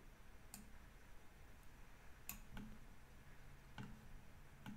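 Faint computer mouse clicks: about five short, sharp ticks spaced irregularly over a few seconds, over near silence.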